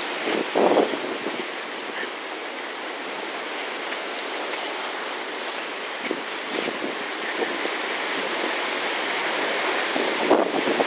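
Hurricane wind and rain making a steady rushing noise, with a brief gust buffeting the microphone about half a second in.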